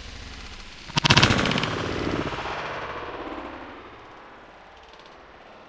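A single shotgun shot about a second in, its report fading away over the next two to three seconds.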